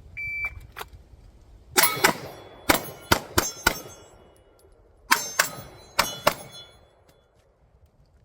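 Shot timer beeps once, then about ten pistol shots in two quick strings, each answered by the ringing clang of a hit steel target.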